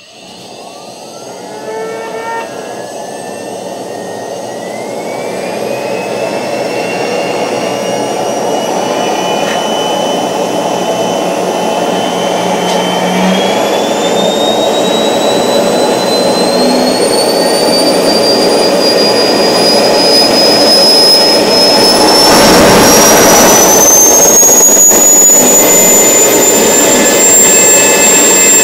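Homemade jet engine spinning up: a whine climbs steadily in pitch as the compressor and turbine gain speed, over a rushing roar that grows louder throughout. A burst of louder rushing comes about two-thirds of the way through.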